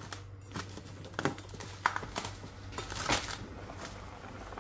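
Plastic cling wrap crinkling in a few irregular crackles as it is stretched and pressed over a plate of dough.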